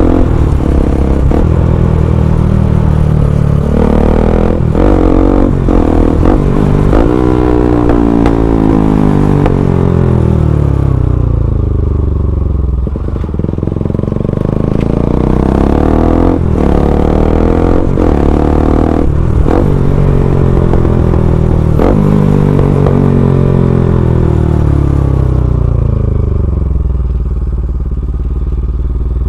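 Bajaj Pulsar NS200's single-cylinder engine running through an Akrapovic full-system aftermarket exhaust while the bike is ridden at speed. The engine pitch falls and rises several times as the throttle and gears change, with short sharp knocks here and there.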